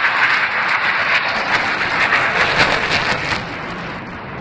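Jet engine noise from Blue Angels F/A-18 Hornets passing overhead, a loud rushing sound that falls away about three and a half seconds in as the jets move off.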